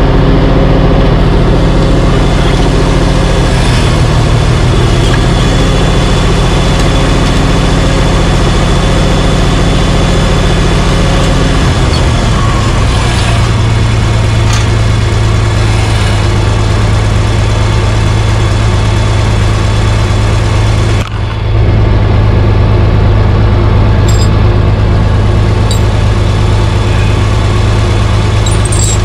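Oliver 1850 tractor engine running steadily while skidding a log; about twelve seconds in, its note drops lower, as if throttled back.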